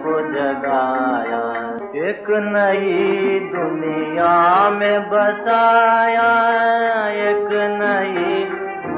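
Music from an old 1930s Hindi film song recording: a melodic line that wavers in pitch, over a steady accompaniment. The recording sounds thin, with no high treble.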